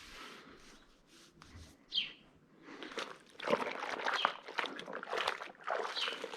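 A few short bird chirps. From about three seconds in, the louder wet rubbing and splashing of a dairy-barn milk pipeline being scrubbed down by hand with hot soapy water.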